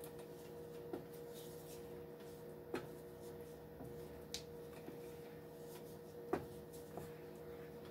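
Wooden spoon stirring thick white sauce gravy in a skillet, with scattered soft clicks and knocks, the strongest about six seconds in, over a faint steady hum.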